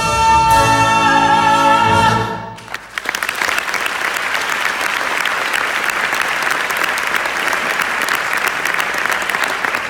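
A stage-musical song ends on a held final note from voice and orchestra, the voice wavering in vibrato, and stops about two and a half seconds in. The theatre audience then breaks into steady applause.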